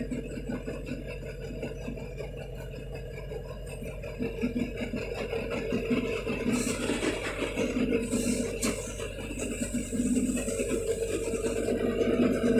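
River boat's engine running steadily with a low, even hum. From about halfway through, a rushing hiss joins it and the whole grows louder.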